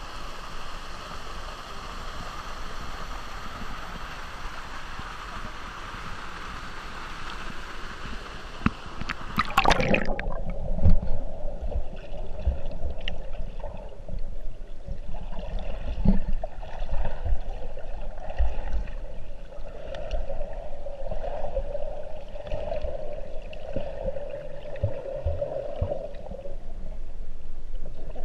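Rushing water of a river pool as a steady hiss, then a splash about a third of the way in as the camera goes under. After that the sound is muffled underwater gurgling with a low drone and scattered dull knocks.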